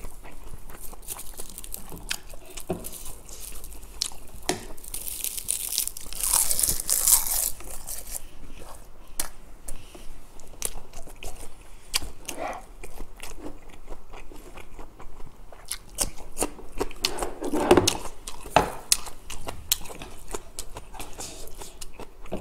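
Close-miked eating of roasted laver (gim) wrapped around rice: mouth clicks, lip smacks, chewing and light crunching. There are two longer, louder noisy sounds, about six and about seventeen seconds in.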